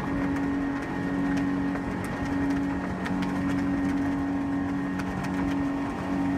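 An engine running steadily at constant speed: an even two-note hum over a constant rushing noise.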